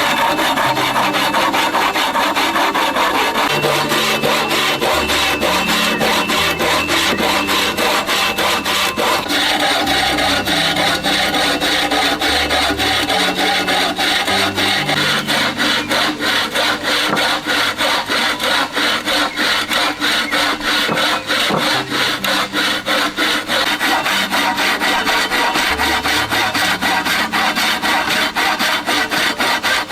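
Saw cutting wood in quick, even strokes, about three to four a second, keeping up without a break.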